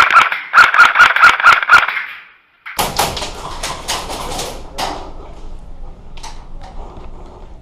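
Airsoft gun firing a quick string of about nine shots, roughly five a second, each with a short whine. About a second later a second, noisier string of shots follows, then a few scattered pops.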